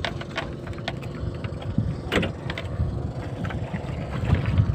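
Low, steady rumble around a bamboo outrigger boat, with scattered sharp clicks and knocks of wood and rope; the sharpest knock comes about two seconds in.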